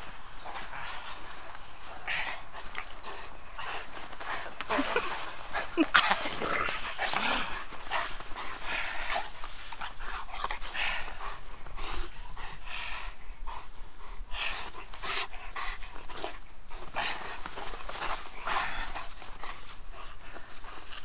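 Newfoundland dog's play sounds: short whines and panting, among many irregular short scuffs and crunches, busiest about five to seven seconds in.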